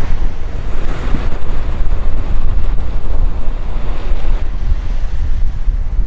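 Wind buffeting the microphone on deck of a sailing yacht: a loud, fluctuating low rumble under a rushing hiss of wind that eases somewhat about four seconds in.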